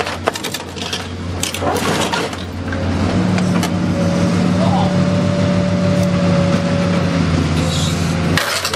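Excavator engine and hydraulics running while its car dismantling shear tears the rear axle out of a car body, with metal cracking and knocking in the first couple of seconds. From about three seconds in, a steady strained hydraulic tone holds as the shear pulls under load, and it cuts off shortly before the end.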